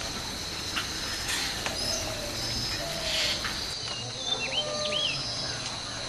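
Insects trilling steadily at a high pitch, with a few short, curving bird chirps about four to five seconds in.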